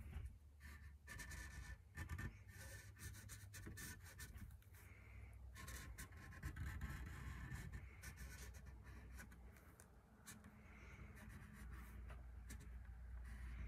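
Faint scratching of a Sharpie felt-tip marker on a sanded wooden hockey stick, in short irregular strokes as the faded lettering is traced over.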